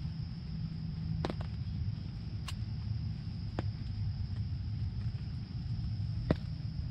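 Outdoor ambience at a summer field edge: a steady high insect drone over a low, steady rumble, with four sharp isolated taps scattered through it.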